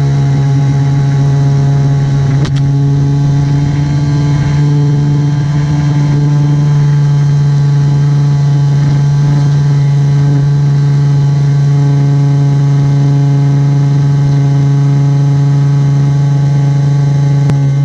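Gas leaf blower engine running at full throttle on board a model airplane, together with the plane's small electric propeller motor: a loud, steady drone that holds one pitch.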